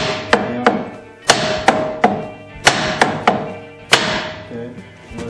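Hammer striking a hardwood block held against the end of a DeWalt DW735 planer's cutterhead shaft, driving the old shaft out: about ten sharp blows in groups of two or three, each leaving a brief ring.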